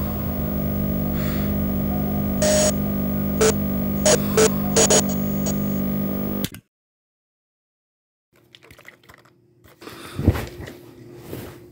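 Old CRT television playing static: a steady hiss and hum with a few sharp crackles, cut off suddenly about six and a half seconds in as the set is switched off at its knob. After a stretch of silence come faint rustles and one dull thump near the end.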